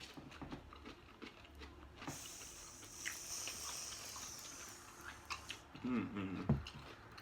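Close-up chewing and crunching of sour pickles, with many small wet clicks. From about two seconds in, a steady hiss lasts about three seconds, an aerosol can of whipped cream being sprayed. A short vocal groan comes near the end.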